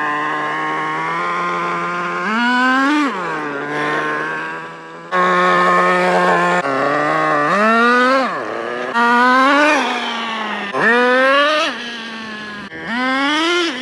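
Traxxas Nitro Slash's TRX 3.3 two-stroke nitro engine being broken in on its first tank, idling steadily and revved up and let fall back to idle about five times.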